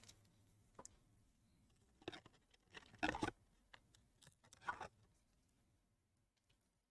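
Faint, brief rustling and scraping of trading cards being handled, in a few short bursts, the longest about three seconds in.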